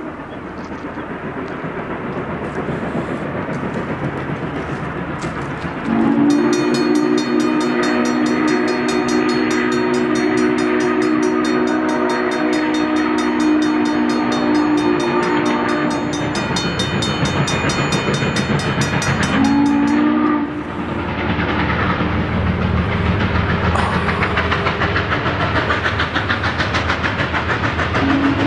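Norfolk & Western 611's steam whistle blowing for a grade crossing as the locomotive approaches: a long several-toned blast from about six seconds in, a short one around twenty seconds, and another long one starting at the end. A crossing bell rings fast underneath, and the locomotive's rumble grows louder in the second half.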